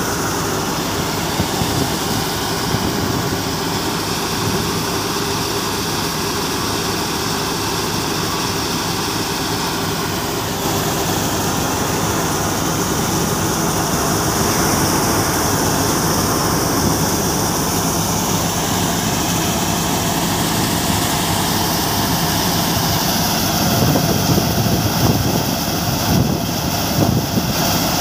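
Tractor-driven Mayur thresher running steadily while threshing mung bean crop, its drum and fans with the tractor engine underneath. It grows louder and rougher a few seconds before the end.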